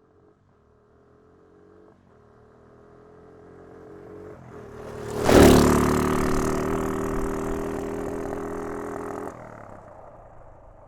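Quad bike (ATV) engine approaching and growing louder, passing close with a loud burst about five seconds in, then running on steadily before dropping away sharply about nine seconds in and fading.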